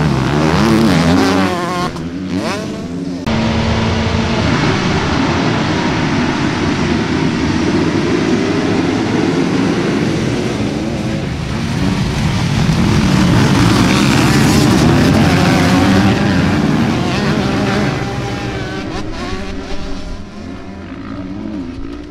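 Motocross dirt bike engines revving hard on a race track, their pitch rising and falling. A single bike revs early, the sound changes abruptly about three seconds in, then a pack of bikes runs loud together before thinning out and fading near the end.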